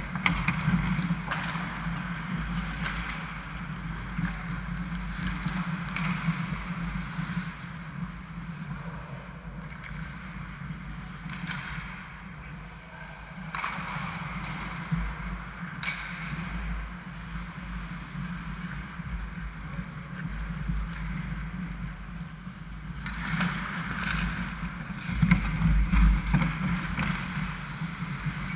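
Ice hockey skating: skate blades scraping and carving on the ice in repeated hissy bursts, over a steady low hum. The bursts are loudest near the end.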